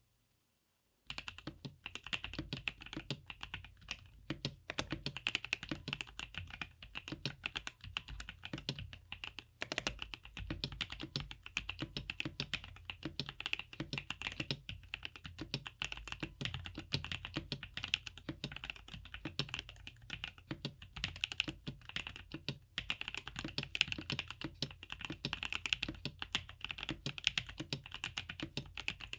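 Fast continuous typing on a GrayStudio Think 6.5 V2 mechanical keyboard with DesignerStudio White Jade tactile switches on an FR4 plate with Poron plate foam and silicone bottom foam, starting about a second in. The keystrokes come as a dense stream of clicks, with a steady low hum underneath.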